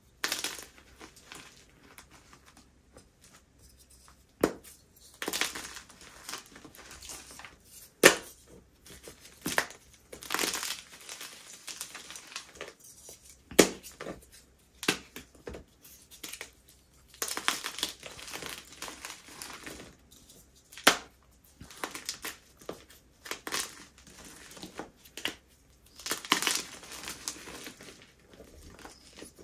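Baked, dyed gym chalk being crushed: sharp single cracks now and then, between longer spells of crumbly, flaky crunching.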